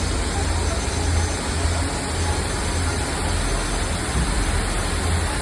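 Stoney Creek Falls' waterfall rushing steadily, with a deep low rumble underneath.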